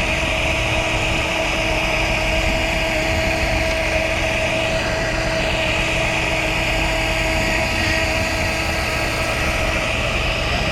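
Fishing boat's engine running steadily, a constant drone with a steady hum and low rumble.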